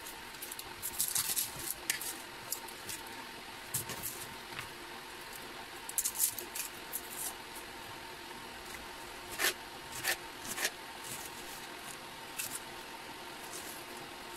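Kitchen knife slicing and dicing a red onion on a plastic chopping board: irregular crisp cuts and taps, three sharper knocks of the blade on the board about two-thirds through, over a faint steady hum.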